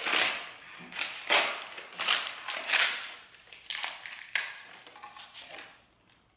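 Packing paper around a vase rustling and crinkling in irregular bursts as it is pulled and torn off, stopping near the end.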